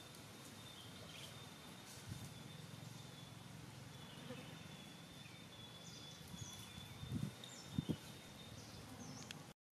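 Quiet outdoor ambience: a thin, steady high tone and a few short high chirps over a low background hum, with two brief soft thumps a little before the end.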